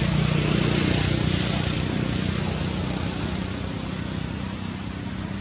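A motor vehicle's engine drone with a broad rushing noise, fading slowly.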